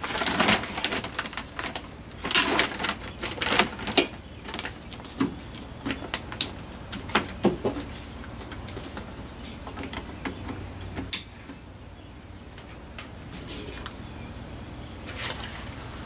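Plastic door vapor-barrier sheet crinkling and rustling as it is handled and pressed against a car door's inner frame, with irregular clicks and taps. The handling is busy for the first half, then sparser, with one sharp click about eleven seconds in.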